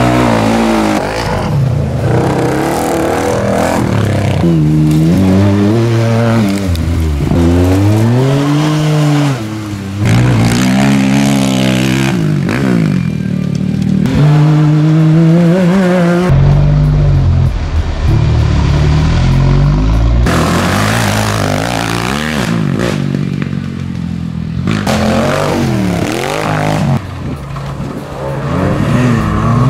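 Racing ATV and side-by-side UTV engines revving, their pitch climbing and dropping again and again with throttle and gear changes.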